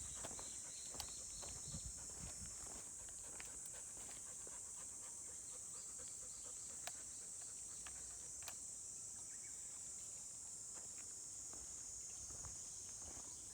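Steady, high-pitched insect buzzing, with a short run of repeated chirps near the start and scattered light clicks and rustles.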